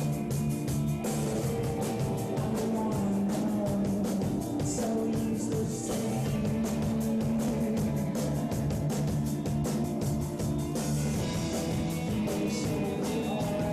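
A pop-rock band playing live: guitars over a steady, fast drumbeat.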